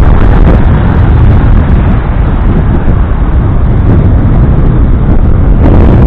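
Loud, steady wind buffeting the microphone over the rush of breaking surf on a stormy sea.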